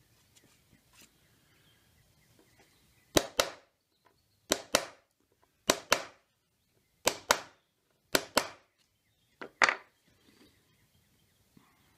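A mallet striking a steel background punch, stamping texture into the recessed ground of a carved wooden panel: six pairs of sharp knocks, each pair a blow and a quick second tap, about one pair every second and a quarter, starting about three seconds in.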